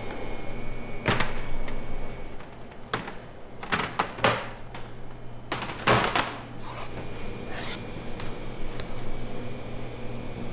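Irregular clacks and knocks of kitchen handling, about nine sharp hits spaced unevenly, over a steady low hum.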